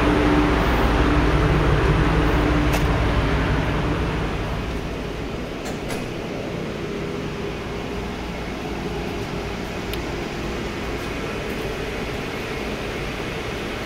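Steady drone and hum of a large ship's engine-room machinery, which drops noticeably in loudness about four seconds in and then holds steady at a lower level.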